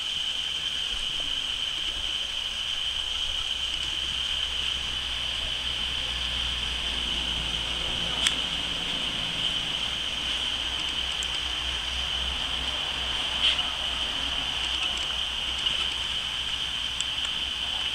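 Outdoor ambience: a low, uneven wind rumble on the microphone under a steady high-pitched hiss, with faint clicks about eight and thirteen seconds in.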